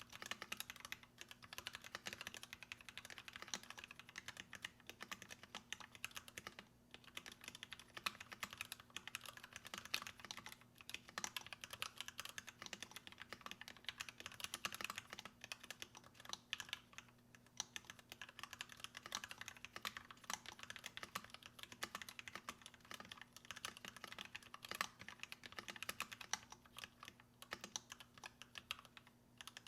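Fast, continuous typing on a mechanical keyboard with lubed Gateron Black Ink linear switches and PBT keycaps, with a couple of short pauses. A faint steady hum lies underneath.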